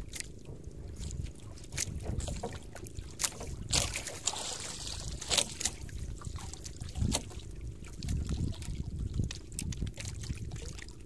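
Wind on the microphone and water lapping against a small outrigger boat, with scattered light clicks and knocks from handling a metal jig and a hooked fish.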